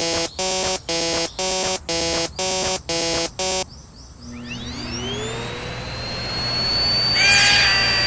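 Railway level-crossing bell ringing 'kan-kan' about twice a second, stopping about three and a half seconds in. Then a rising whine settles into a steady high tone over a growing rushing noise, with a falling sweep of several tones near the end.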